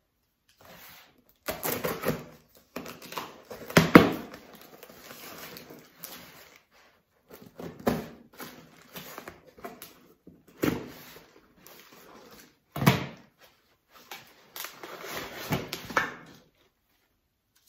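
Parcel packaging being handled and opened by hand: irregular bursts of rustling and crackling with a few sharper knocks, and bubble wrap crinkling near the end.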